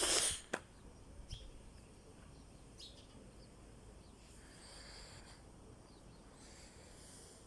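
A short rush of noise at the start and a single click, then faint outdoor background with distant birds chirping now and then.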